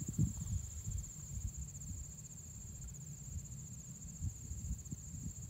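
Steady, high-pitched trilling chorus of insects in the grass, with irregular low rumbles underneath.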